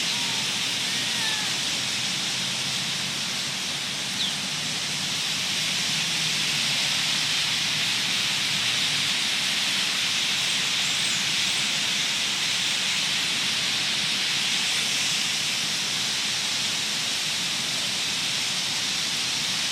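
A huge flock of birds chirping, thousands of calls blending into a steady wash of sound, with a few single calls standing out now and then.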